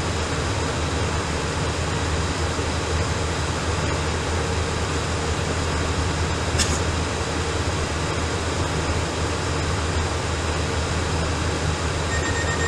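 Steady hiss and low hum of an air traffic control radio recording in a gap between transmissions. A short click comes about six and a half seconds in, and a thin steady tone starts near the end.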